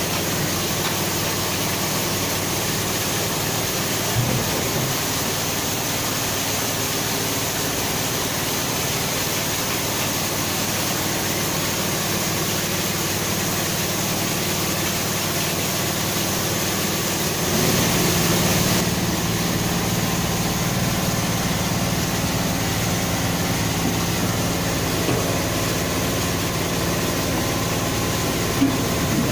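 Steady engine hum of a water tanker truck running while it pumps water through a hose into the depot's storage tanks, briefly louder about two-thirds of the way in.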